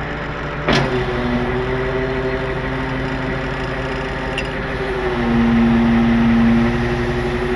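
Tow truck's engine and hydraulics running while its boom and winch cables are worked: a steady whine with a sharp clunk about a second in, rising louder for about a second and a half around five seconds in.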